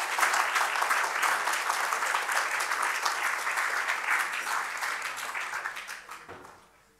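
Audience applauding, a dense spread of clapping that dies away near the end.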